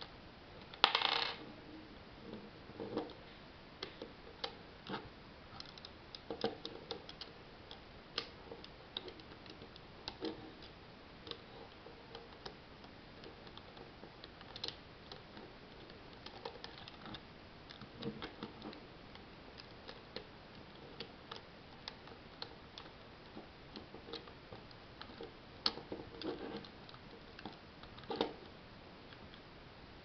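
Small plastic clicks and taps of Lego bricks as a Lego puzzle box's sliding and pushing mechanisms are worked by hand, scattered irregularly throughout. A louder brief rattle comes about a second in, and a cluster of louder clicks near the end.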